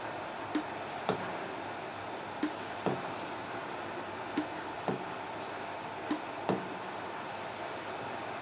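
Mori Seiki MS-850 engine lathe running steadily, with sharp knocks in pairs about half a second apart, four pairs roughly two seconds apart.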